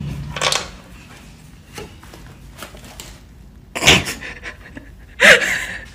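A golden retriever panting, broken by a few short loud sounds, the loudest about four seconds in.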